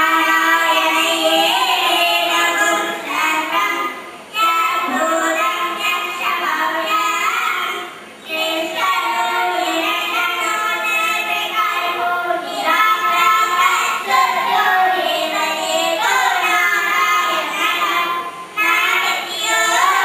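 A group of young girls singing a prayer song together through handheld microphones, in phrases broken by brief pauses for breath.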